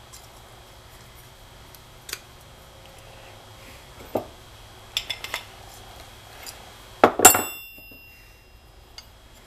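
Steel open-end wrenches and a nut being handled on a metal workbench: scattered light clicks and clinks, then, about seven seconds in, a loud metal clank that rings briefly.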